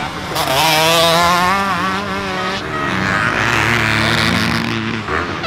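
Motocross bike engines racing, including a two-stroke Husqvarna 125. The pitch rises and falls as the throttle is worked through a corner. A second bike's engine comes in from about three seconds in.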